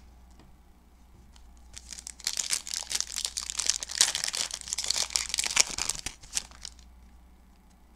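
Foil wrapper of a 2020 Panini Prizm football card pack crinkling and tearing as the pack is opened by hand, a dense run of crackles from about two seconds in until about seven seconds in.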